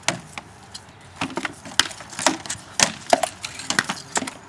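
Rattan swords striking wooden shields and armour in a run of about a dozen sharp, irregular knocks. After the first two there is a short pause, and then the blows come thick and fast in exchanges.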